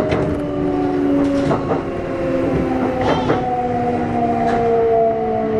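Kintetsu 1249 series electric train's Hitachi GTO inverter whining as it runs, several tones drifting slowly lower in pitch as the train slows, with a few sharp clacks from the wheels over the rail joints.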